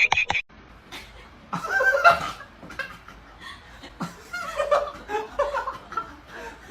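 A person laughing: a quick run of laughing bursts that stops about half a second in, then scattered chuckles with quieter gaps between.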